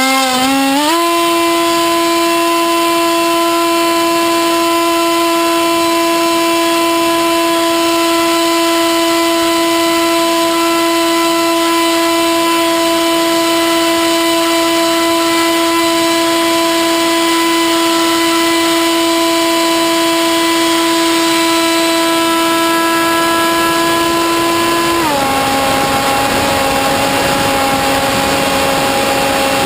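The Sky Surfer RC plane's electric motor and propeller whine steadily at one high pitch over a rush of air, heard from a camera on the plane itself. The motor spins up in the first second, drops to a lower pitch about 25 seconds in, and climbs back up near the end.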